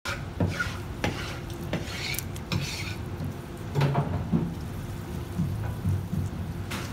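Knife and sea bream head being worked on a plastic cutting board: a series of sharp knocks and taps about once a second, with a short stretch of scraping a couple of seconds in.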